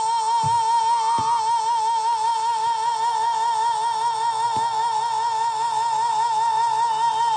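Distorted electric guitar holding one long, high sustained note with an even vibrato, with a few soft drum hits underneath.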